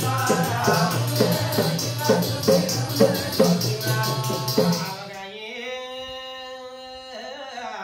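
Kumaoni jagar folk music: a drum beats a steady rhythm under jingling percussion, which stops about five seconds in. A singer then holds one long note that dips near the end.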